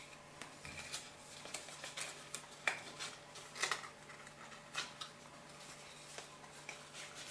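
Faint handling sounds of paper and cardstock: scattered small clicks and rustles at an irregular pace as cut-out pieces are fitted into a card.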